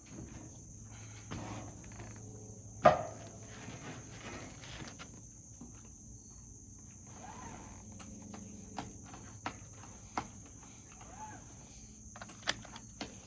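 Steady high-pitched insect chirring, crickets, in the background, with scattered knocks and clicks of handling. One sharp knock about three seconds in is the loudest, and a quick run of clicks comes near the end.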